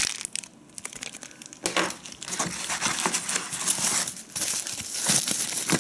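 Thin plastic packaging film and bags crinkling as they are handled and pulled from the box's insert tray, with a brief lull about half a second in.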